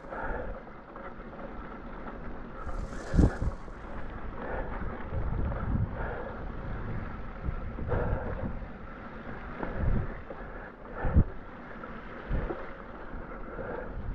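Riding noise from a Specialized Fuse hardtail mountain bike on a wet trail, with wind rumbling on the microphone. A short hiss and a sharp knock come about three seconds in, and another sharp knock about eleven seconds in, as the bike jolts.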